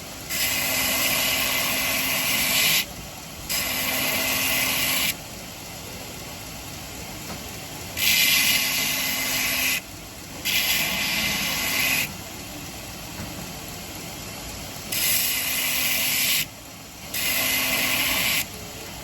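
Stainless steel cleaver blade pressed against a running sharpening machine, grinding the edge with a hiss in six passes of about two seconds each, in three pairs, with the machine running steadily between passes.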